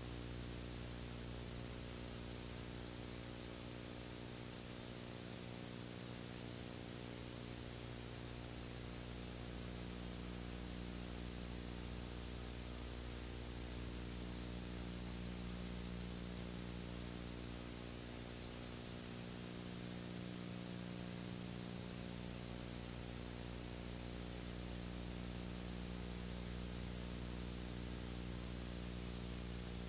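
Steady hiss with a low electrical hum and its overtones, unchanging throughout: the noise floor of a recording with no other sound on it.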